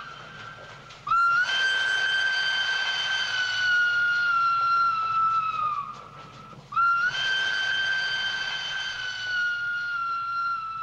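Train whistle sounding two long blasts of about five seconds each, one after the other with a short gap. Each holds one high pitch that sags slightly as the blast dies away.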